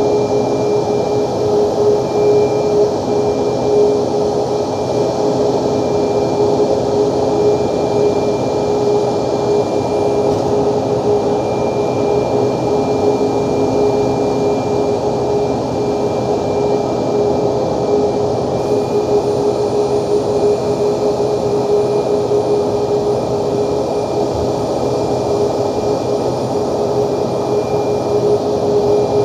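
Boeing 737 MAX's jet engines running steadily at low thrust while the airliner taxis: an even rushing drone with a strong steady hum-like tone running through it.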